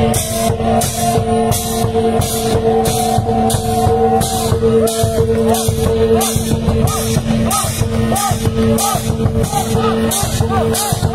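Lanna klong sabatchai drum ensemble playing: drumbeats with cymbals clashing about twice a second, under a steady held drone and a wavering melody line.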